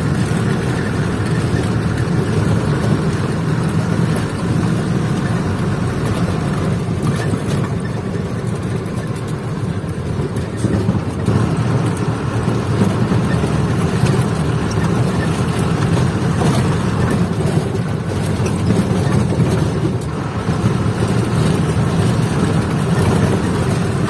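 Truck engine running steadily while driving, a continuous low drone with road noise, heard from inside the cab.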